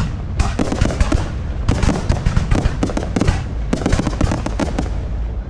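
Fireworks display: a rapid, continuous run of booming bursts and crackling, with a heavy low rumble under the bangs.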